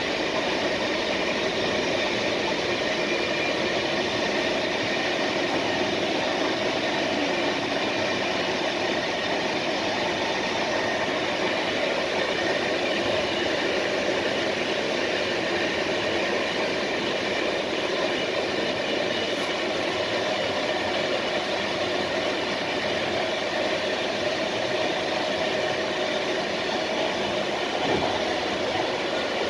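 Steady running noise of an intercity passenger train at speed, heard from the rear of the last coach: wheels rolling on the rails with a continuous rumble and hiss. A brief knock comes near the end as the train runs over a set of points.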